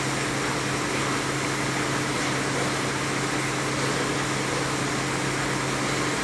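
Steady background hiss with a low, even hum and no distinct events.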